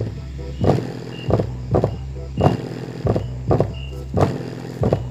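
Bass-heavy music played through an unboxed ACR Pro woofer driven by a homemade subwoofer filter on two 4558 op-amps: a steady deep bass line with a strong kick hitting a little under twice a second.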